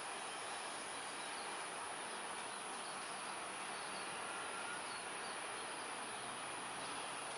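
Steady outdoor background hiss with a few faint, short chirps over it.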